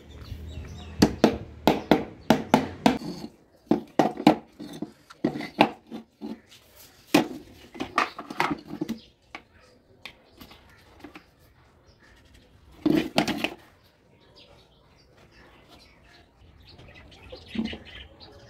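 Sharp metallic clacks and knocks from a homemade magnetic welding holder being handled on a bench and snapping against a steel pipe and a flat steel bar. A quick run of clacks comes early, more are scattered through the middle, and a short cluster comes later.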